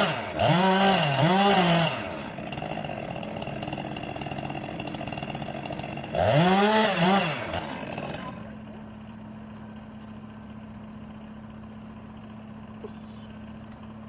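Two-stroke chainsaw being blipped: two quick revs up and down near the start and two more about six seconds in, running more quietly in between. It then settles to a steady, lower idle for the rest.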